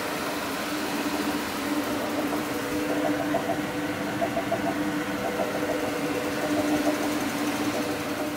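Drive of a Gardner stainless steel ribbon blender running empty: the 18.5 kW electric motor and gear drive turning the ribbon agitator, a steady mechanical hum with a constant tone.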